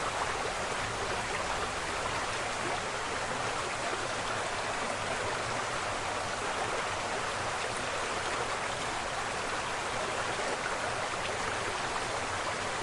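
Karuru Falls' steady, even rush of falling water.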